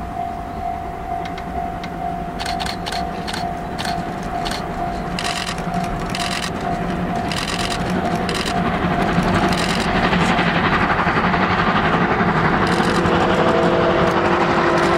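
C57 steam locomotive working as it approaches, its exhaust beats about twice a second and growing steadily louder. A run of sharp clicks comes in the middle, and a steam whistle sounds near the end.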